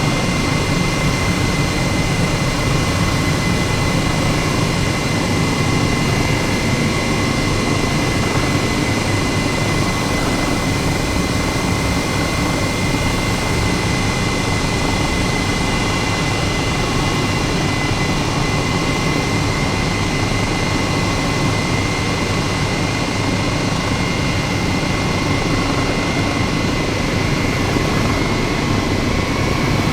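Steady jet engine noise with a constant high whine over it, running without change.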